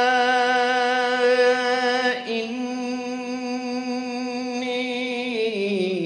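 A male Quran reciter chanting in the melodic mujawwad style, holding one long vowel on a single pitch with a slight waver. Near the end the note slides down in steps.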